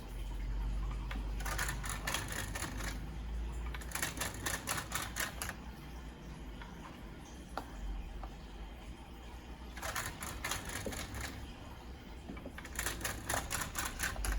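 Marantz CD19a CD player's disc tray mechanism clattering in four bursts of rapid clicking, each about a second and a half long. This is the fault the player came in for: a rattling noise when the tray moves out, with the tray misbehaving.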